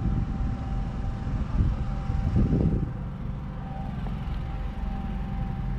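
Low rumble of a car running, with a louder swell about two seconds in and a faint steady high tone over it.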